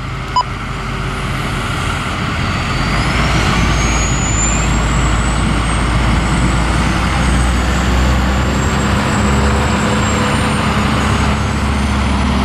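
Utility bucket trucks driving past in a convoy: a steady engine rumble and tyre noise that grows louder about three seconds in and then holds, with a faint high whine slowly rising and falling over it.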